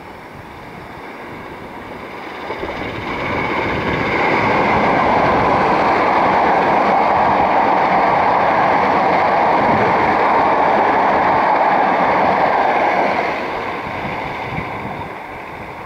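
Class 455 electric multiple unit passing close by at speed: a rushing rumble of wheels on rail that builds over the first few seconds, holds for about nine seconds as the carriages go past, then fades as the train pulls away.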